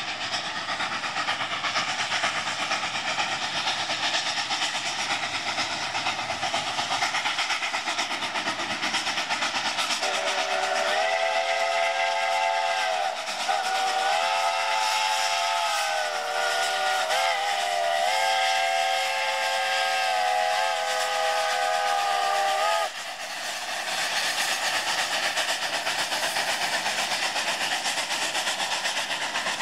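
Double-headed K-37 and K-36 Mikado narrow-gauge steam locomotives working hard upgrade, their exhaust and steam making a steady rushing noise. About ten seconds in, a steam locomotive's multi-tone chime whistle sounds for about twelve seconds in blasts run together, then cuts off.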